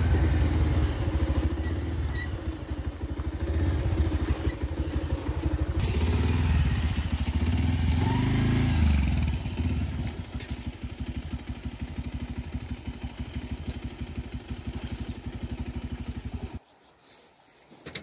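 Motorcycle engine running as it is ridden through shallow river water. It revs up and back down around the middle, then settles to a quieter, steady beat. It cuts off suddenly near the end.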